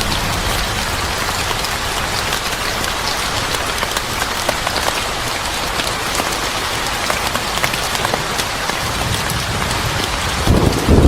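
Steady rain falling on a surface, a dense hiss dotted with sharp drips. A low rumble of thunder starts near the end.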